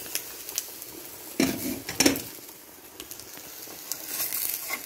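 Chicken burger patty sizzling in a small ceramic-coated frying pan, with a slotted plastic spatula scraping and clattering against the pan about a second and a half in and again at two seconds, and scraping again near the end as it slides under the patty.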